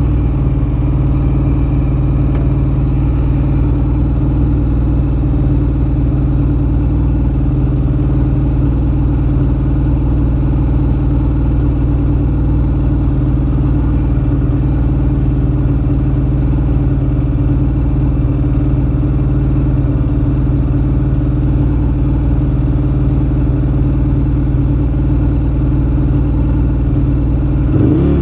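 A 2013 Ducati Monster 1100 EVO's air-cooled L-twin, breathing through a Termignoni exhaust, idles steadily. Near the end the revs start to climb.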